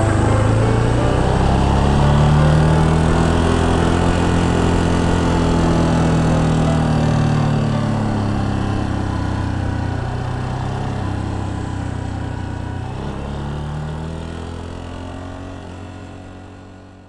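Yamaha Serow 250's air-cooled single-cylinder engine running under way, heard from on the bike, its note rising and falling a few times with the throttle. The sound fades out near the end.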